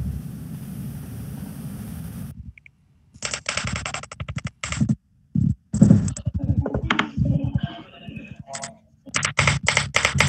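Computer keyboard typing in quick, irregular runs of keystrokes. It comes after a steady low hum that cuts off suddenly about two and a half seconds in.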